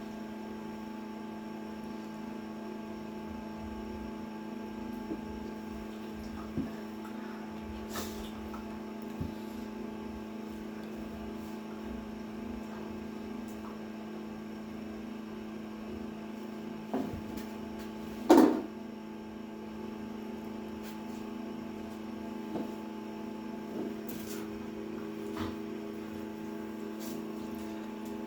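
Steady electrical hum in a small room, with scattered light taps and clicks and one short, louder sound about eighteen seconds in.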